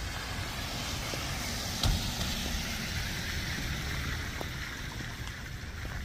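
A car passing on a wet street, its tyre hiss swelling and then fading, over a steady low rumble, with a single thump about two seconds in.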